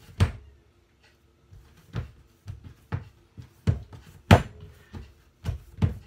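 Hands working a rope of pastizzi dough on a wooden table as it is stretched out, making short dull thumps and knocks. After a quiet second near the start they come irregularly, roughly one every half second.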